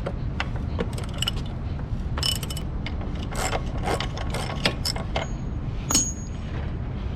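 Hand tools working on a motorcycle wheel to take it off: ratchet-like clicks and metal clinks in short irregular clusters, the loudest clink about six seconds in, over a steady low rumble.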